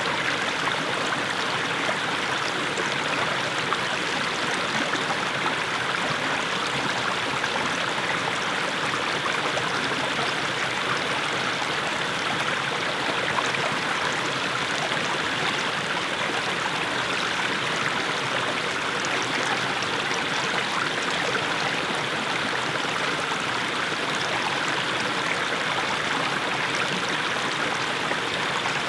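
Small mountain brook babbling steadily as it splashes down over little steps of mossy stones.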